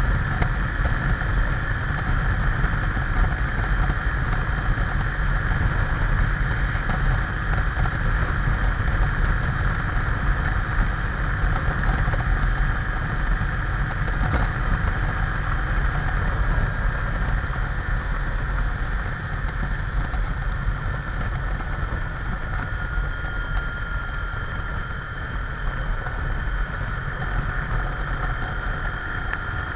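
Motorcycle riding slowly and steadily, its engine running under a heavy rumble of wind noise on the bike-mounted camera's microphone.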